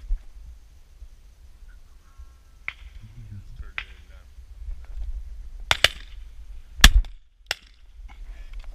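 Shotgun shots from a break-action shotgun at flighting ducks: a pair of sharp reports close together, the loudest shot about a second later, then one more shortly after, over a low rumble of wind on the microphone.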